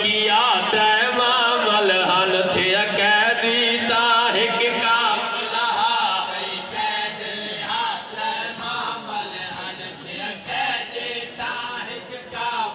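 Men chanting a noha, a Shia mourning lament, together in a slow melody. It is louder at first and softens after about six seconds.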